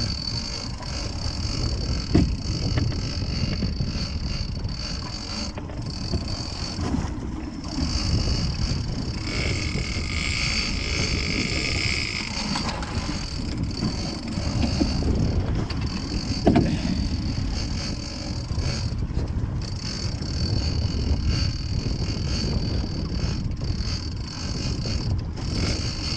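Boat's motor running under way, with water and wind noise and a steady high whine, broken by a couple of sharp knocks.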